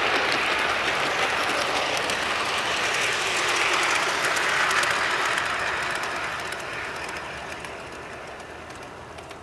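G scale model train, a Bachmann Consolidation steam locomotive pulling freight and passenger cars, rolling along outdoor track with a steady wheel-and-rail hiss and faint clicking. It fades away over the second half as the train moves off.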